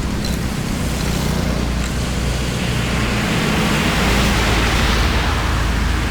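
Steady rush of floodwater draining away, growing louder about halfway through.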